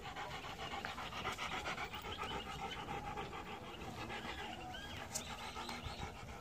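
A Rottweiler panting hard with its tongue out, a rapid, even run of breaths.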